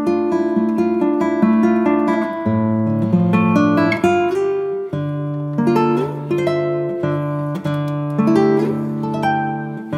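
Background music: acoustic guitar plucking and strumming a melody over a moving bass line.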